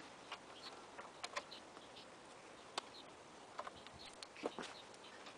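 Faint, irregular small clicks and ticks of screws being worked loose from the motorcycle's bodywork.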